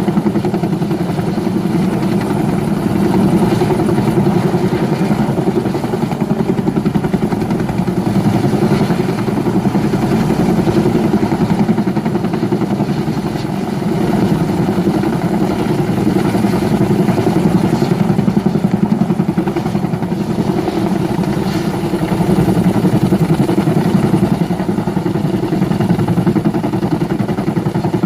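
Bell 212 twin-turbine helicopter running at power, its rotor beating in a steady, rapid chop over the turbine noise.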